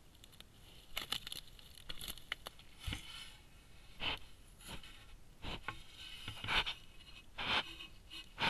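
A large animal's hairy hide rubbing and scraping against the trail camera's housing, in irregular brushing strokes about once or twice a second.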